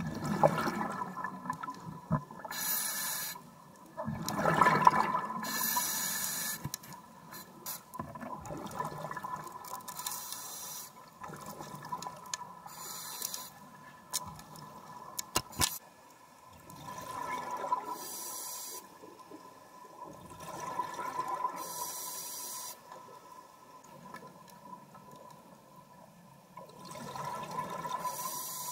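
Scuba diver breathing through a regulator underwater: rushing breaths and bursts of exhaled bubbles that recur every few seconds, over a faint steady whine.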